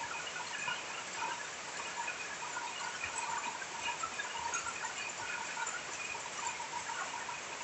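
Steady rain falling on dense forest foliage, an even hiss. Short high chirps repeat throughout, scattered over the rain.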